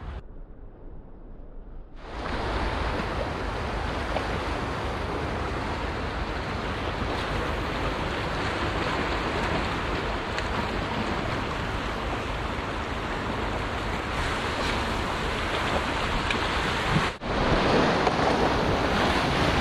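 Sea surf breaking and washing around shoreline rocks, a steady rushing noise starting about two seconds in, with wind rumble on the microphone.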